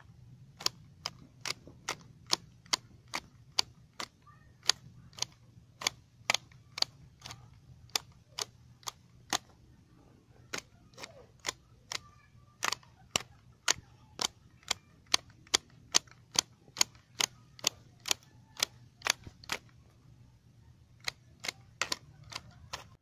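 Wooden-handled hedge shears snipping grass, the blades snapping shut in a steady run of sharp clicks, about two a second, with a couple of short pauses.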